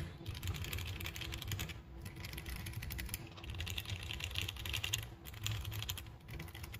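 Rapid typing on a mechanical keyboard fitted with JTK Cherry-profile keycaps, a fast run of key clacks. There are short pauses about two seconds in and near the end.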